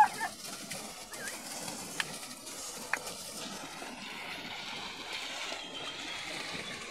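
A herd of water buffalo trudging down a muddy bank, their hooves churning through wet mud. A short, sharp warbling call sounds at the start, another comes about a second later, and there are two brief clicks.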